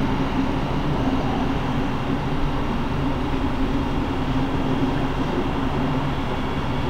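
Electric multiple-unit passenger train approaching slowly into the station, a steady low rumble.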